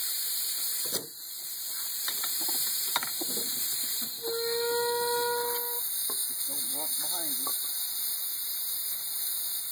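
Steady hiss of CO2 and foaming beer through a homemade counter-pressure bottle filler, with a few sharp clicks from its valves and a bench bottle capper. A steady horn-like tone sounds for about a second and a half near the middle, followed by a brief warbling sound.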